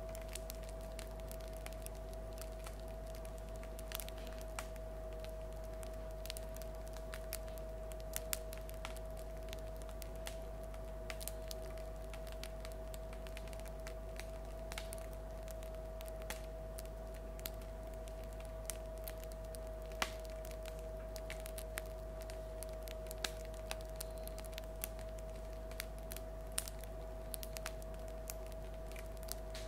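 Crust of a freshly baked loaf of bread crackling as it cools (the 'singing' of bread): sparse, irregular small sharp clicks and pops, over a steady background hum.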